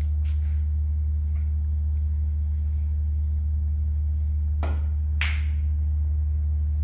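A pool shot: the cue tip knocks the cue ball, and about half a second later comes a louder, ringing clack of ball striking ball. A steady low hum runs underneath.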